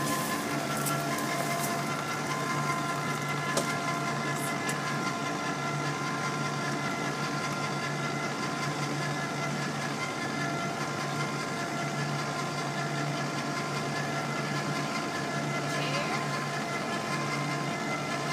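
A motor running steadily: a low hum with a thin, unchanging whine over it.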